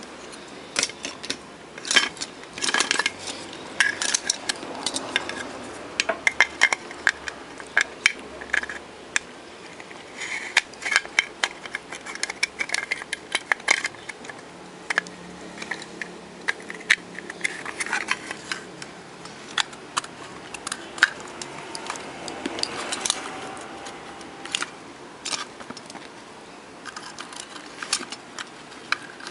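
Irregular small clicks, taps and light clatter of hard plastic and metal parts being handled: the circuit board and plastic body of a Kadosh K4.1M wireless handheld microphone being fitted together by hand.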